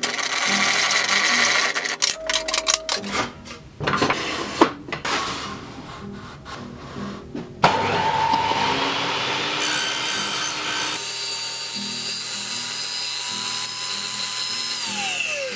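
Table saw cutting a slot into plywood, with clicks and knocks in the first few seconds. A steady whine follows, then falls sharply in pitch near the end as the blade spins down. Background music with a steady beat runs underneath.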